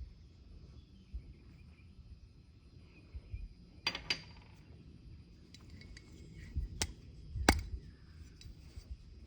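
Small metal carburetor parts and hand tools clicking and clinking during disassembly of a Holley two-barrel carburetor: a few sharp knocks, the loudest about seven and a half seconds in.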